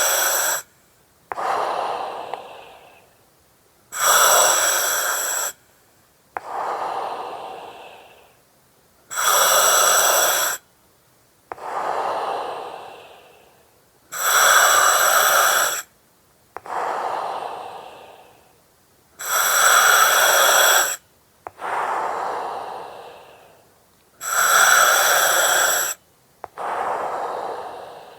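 Slow, steady breathing through an oxygen mask with regulator hiss, about one breath every five seconds. Each breath is a hiss that starts and stops sharply, followed by a softer breath that fades out.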